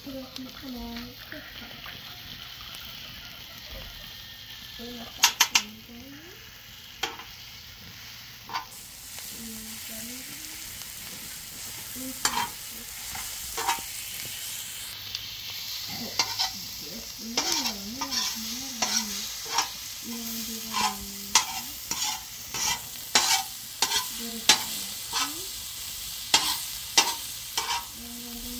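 Food frying in a large flat black pan over a wood fire, sizzling steadily, while a metal spatula stirs and scrapes it, clinking sharply against the pan: a few knocks in the first half, then frequent ones, about one to two a second, in the second half.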